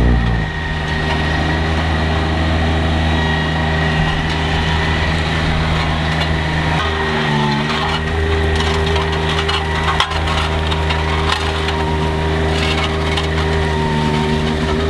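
Scania R520's 16-litre V8 diesel running steadily under work, with a brief dip in pitch about seven seconds in and one sharp click about ten seconds in. A thin steady whine and a crackly, crunching noise run over it.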